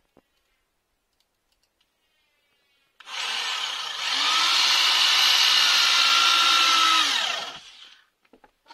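Corded electric drill driving a wood screw into a floorboard. The motor starts about three seconds in, gets louder about a second later, runs steadily for about three more seconds and winds down with a falling pitch, followed by a few small clicks.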